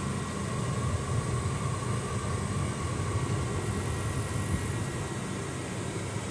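Steady engine drone and road noise heard from inside the cabin of a moving vehicle: a low, even hum with a faint higher tone above it.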